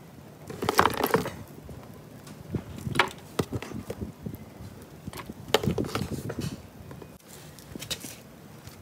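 Irregular knocks and clatters of fish being handled in a plastic cooler, with louder clusters about a second in and again around the middle.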